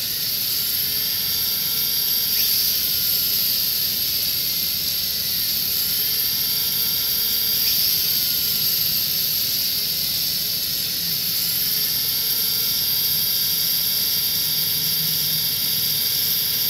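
The gyro in a Kyosho Mini-Z Moto Racer RC motorcycle spinning with a steady high-pitched whine. Its pitch slides down and back up about three times as the gyro's speed changes.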